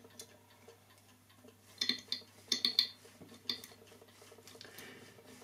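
Light metallic clicks and taps, irregular and clustered a couple of seconds in, as a sewing needle gripped in pliers is worked around the pivot holes of a clock plate to burnish them.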